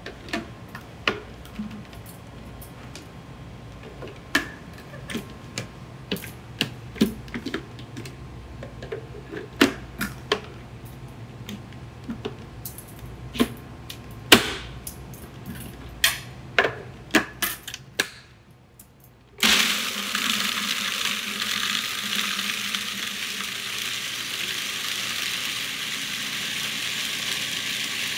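Scattered sharp clicks and knocks as chickpeas are loaded into the plastic bowl of a small food processor. About two-thirds of the way through, after a brief hush, the food processor starts and runs steadily with a loud, high whir, grinding chickpeas and ice into hummus paste.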